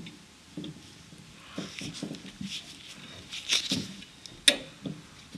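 Nissan Almera N16 gear shift rod being rocked by hand in its linkage bushing at the gearbox end, giving irregular light knocks and rubs, with one sharp click about four and a half seconds in. The knocking is the play of a worn shifter bushing, the cause of a sloppy gear stick.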